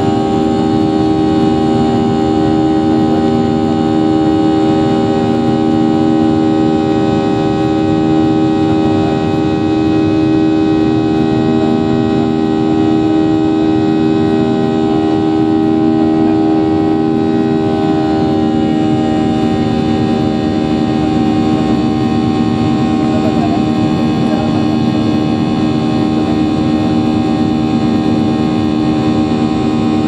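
Boeing 737-800's CFM56 turbofan engines heard from inside the cabin during the climb: a steady drone of several fixed tones over a rushing noise. The tones change slightly a little past halfway.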